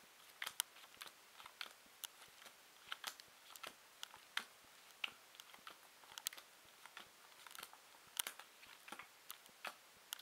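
Playing cards being dealt one at a time into rows on a table: a faint, irregular run of light snaps and taps, about two a second.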